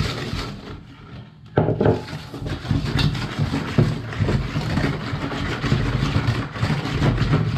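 Wire balloon whisk beating sugar into a liquid mixture in a large stainless-steel bowl. The whisk clatters and scrapes fast and steadily against the metal, starting abruptly about a second and a half in after a quieter start.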